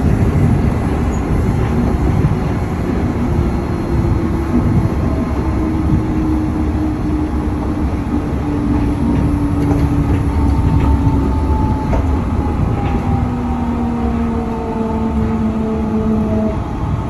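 Cabin sound of a Yurikamome rubber-tyred automated guideway train running on its elevated track: a steady low rumble with a faint motor whine that slowly falls in pitch and stops shortly before the end.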